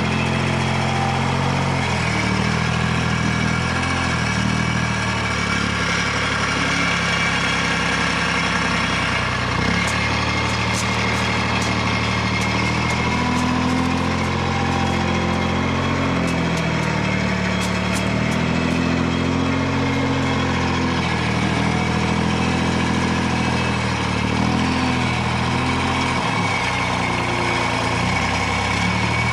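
An engine running steadily, its pitch dipping and rising now and then as it takes load, with faint light clicks near the middle.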